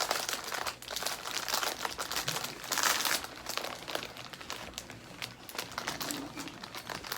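Crinkly plastic snack-cake wrapper being handled and opened: a dense, irregular crackling that is loudest about three seconds in.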